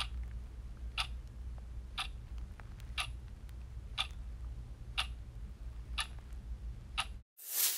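Clock-like ticking, one sharp tick a second, over a low steady rumble of wind and handling noise. Near the end the sound cuts out abruptly and a short loud swoosh rings out.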